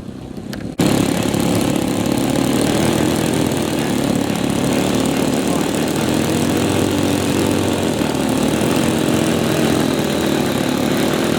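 Model aircraft engine running steadily at close range, coming in abruptly about a second in and holding a steady pitch.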